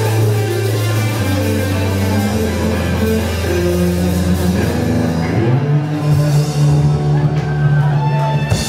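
Live rock band with electric guitars, bass and drum kit playing loudly. Long held bass notes step down in pitch, and a sharp crash comes near the end.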